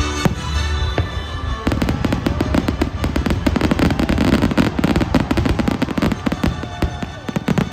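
Fireworks going off: a single bang just after the start, then from about two seconds in a dense barrage of rapid crackling pops and bangs.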